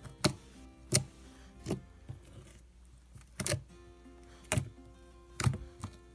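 Slime being squished and poked, making sharp clicking pops roughly once a second over soft background music.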